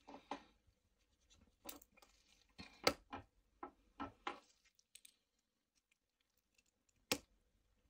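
Faint clicks and rustles of gloved fingers handling flex cables and pressing board-to-board connectors into place inside a Samsung Galaxy S23 Ultra. They come as a run of short clicks in the first five seconds, then one sharper lone click about seven seconds in.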